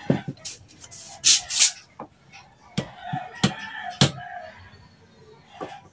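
Sharp clicks and knocks of small metal parts being handled, with two short, harsh hissing bursts about a second in. A drawn-out fowl call, like a rooster crowing, sounds in the background about three seconds in.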